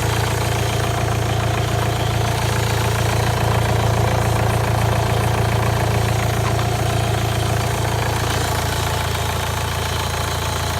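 Volkswagen 1.9 TDI (AFN code) four-cylinder turbodiesel idling steadily, with an even, rapid diesel combustion rhythm.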